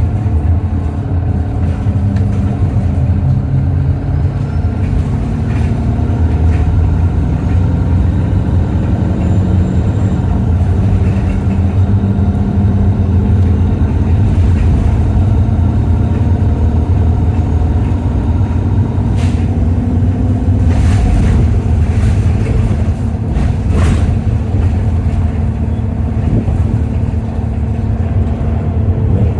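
Alexander Dennis Enviro200 bus's diesel engine running, a steady low drone whose pitch shifts slightly now and then, with a few short sharp knocks or rattles about two-thirds of the way through.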